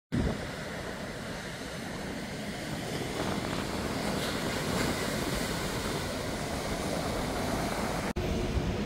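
Rough ocean surf breaking on a sandy beach: a steady rushing noise with heavy low rumble.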